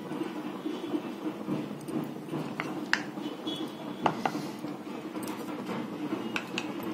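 A few light clinks and taps of a metal spoon against a steel cake tin as batter is spooned in, over low room noise.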